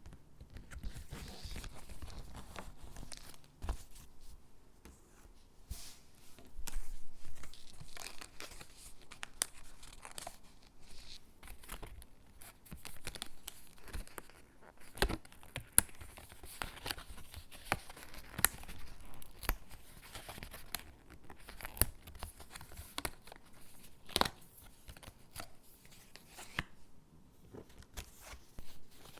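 Stickers being peeled off their backing sheet and pressed onto paper cutouts: irregular peeling, crinkling and paper rustling, with sharp little clicks scattered throughout and a louder rustle about seven seconds in.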